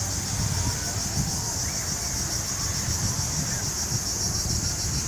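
Steady high-pitched insect chorus with a fast pulsing shimmer, over low wind rumble on the microphone.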